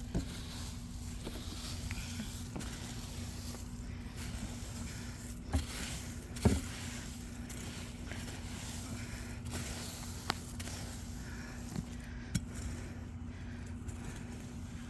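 A few scattered short knocks and scrapes over a steady background hum, the sharpest knock about six and a half seconds in.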